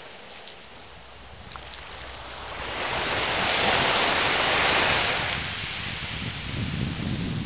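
Sea waves on a beach: a quiet lull, then a wave breaks and its wash rises to a loud hiss about three seconds in, holding for a couple of seconds before easing into a lower rumble of surf.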